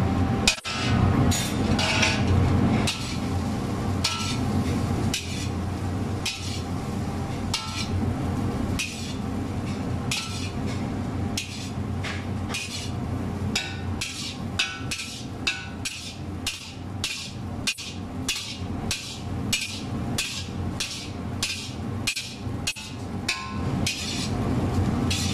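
Metal utensil clanking against a wok about twice a second while fried rice is stirred and tossed, with a steady low hum underneath.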